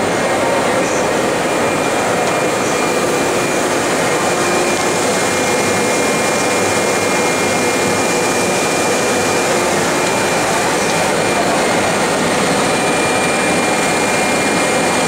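Three-layer blown film extrusion line running: a loud, steady rush of air from its blowers and motors, with faint steady whining tones over it.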